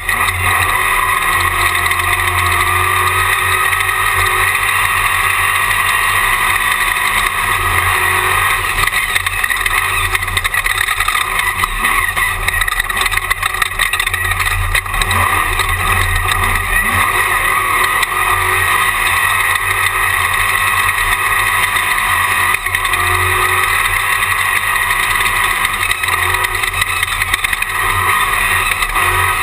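Jimco Class 1 desert race buggy at racing speed, heard from an in-car camera: its engine runs hard under a constant loud rushing noise, and the engine note rises and falls a few times with the throttle.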